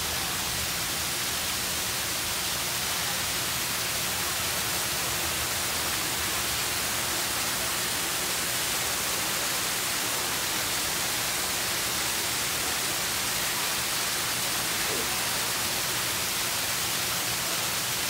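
Steady rushing hiss of a small artificial rock waterfall splashing into a pool.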